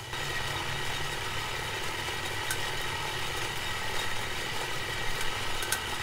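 Steady running of the air blower forcing air through a duct into the bloomery furnace during the smelt, a constant low hum with an even rush of air.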